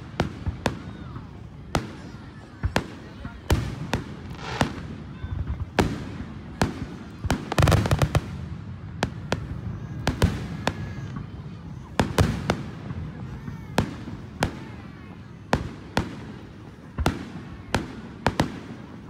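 Aerial fireworks shells bursting in a run of sharp bangs, about one or two a second, with a rapid cluster of bangs about eight seconds in.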